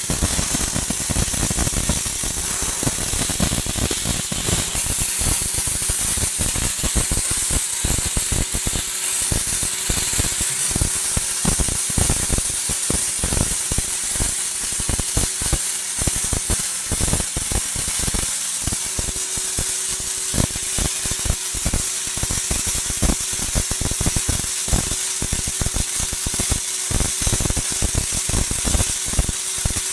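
Lorch S5 SpeedPulse XT MIG/MAG welder's pulsed arc burning steadily: a continuous dense crackle with a hiss and a thin steady tone underneath.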